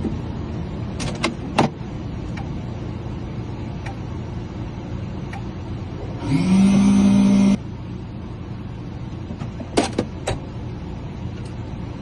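A small electric motor whirs for about a second and a half, starting about six seconds in, rising in pitch as it spins up and then holding steady. It runs over a steady low hum, with a few sharp clicks before and after.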